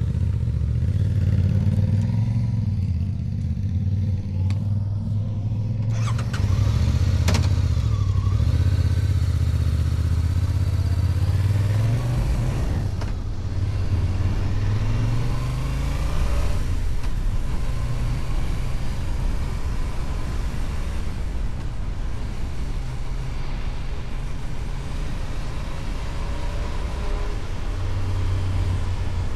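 Kove 625X Adventure motorcycle running through its stock exhaust while riding, a steady engine note under road and wind noise. The engine pitch rises about halfway through as the bike accelerates.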